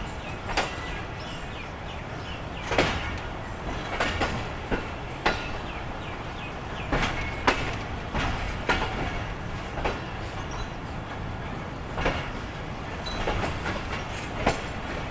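Passenger coach wheels running over the track as the train moves off, a steady low rumble broken by about a dozen irregular sharp clacks at rail joints and points, with a few brief faint wheel squeals. Heard from aboard the coach.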